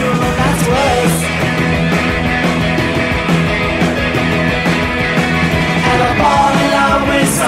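Punk rock song playing: loud distorted guitars, bass and drums with a steady driving beat, and sung vocals coming in and out.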